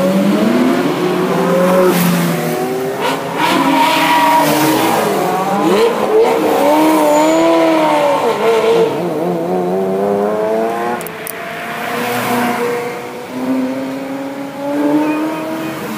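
Several Ferrari sports-car engines revving and pulling away one after another, their notes rising and falling and overlapping. The engines are loudest midway and ease off later.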